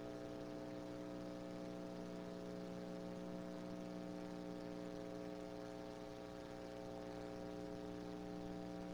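Faint steady electrical mains hum, a low buzz with several overtones, over an even background hiss.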